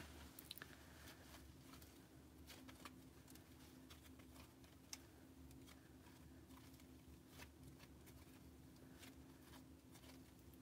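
Faint, scattered clicks and small pops of orange slime being stretched, folded and pressed between the hands, over a low steady hum.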